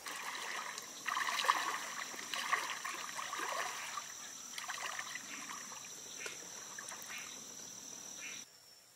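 Boots wading through shallow water, sloshing and splashing with each stride, about once a second, over a steady high-pitched drone.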